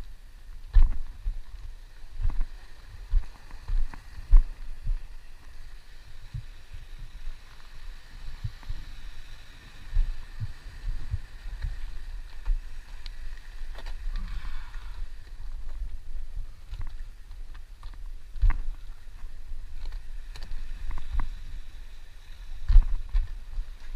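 Irregular low thuds and knocks of someone clambering down rocks, shoes and hands landing on stone and jostling a body-worn camera, over a steady faint wash of sea water.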